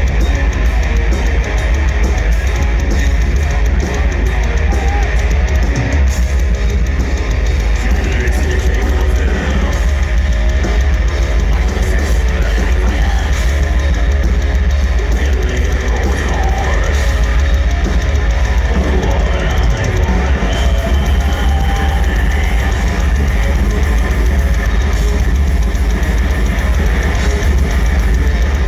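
Black metal band playing live at full volume: distorted electric guitars and bass over a drum kit, with a heavy, constant low end and no let-up.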